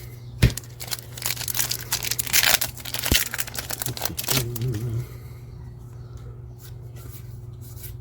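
Trading cards being handled and slid against one another, with a spell of crinkling rustle in the first few seconds and a couple of sharp clicks, then quieter faint ticks.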